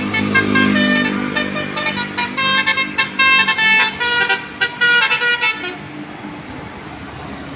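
Telolet horn on a bus playing a quick tune of short notes at changing pitches over the running engine. The tune cuts off about six seconds in, leaving engine and traffic noise.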